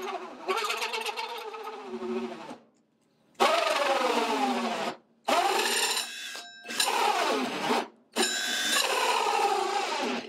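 Cordless drill driving a hole saw into a wooden board, run in four bursts with short stops between them. In each burst the motor's whine drops in pitch as it bogs under the cutting load.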